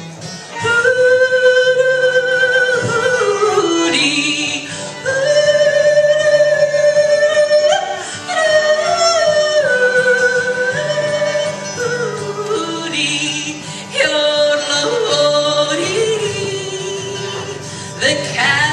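Wordless yodeling by a single voice, long held notes joined by slides and sudden breaks in pitch, over bluegrass band accompaniment.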